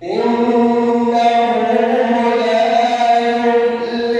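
A man's voice chanting Quran recitation, coming in abruptly and holding one long, steady note, a drawn-out vowel of tajwid recitation.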